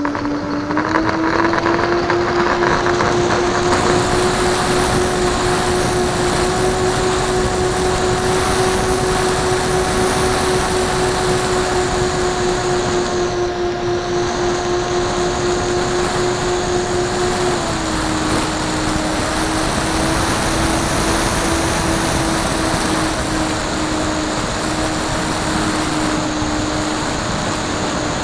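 Onboard sound of a radio-controlled model airplane's motor and propeller at full power through the takeoff run and climb: a loud, steady high-pitched drone over rushing noise. The pitch drops slightly about two-thirds of the way in.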